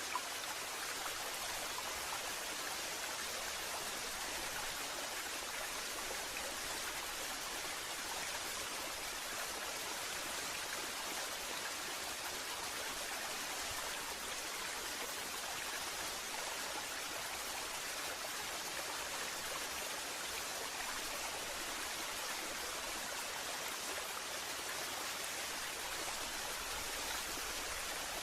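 Waterfall: falling water rushing in a steady, even hiss.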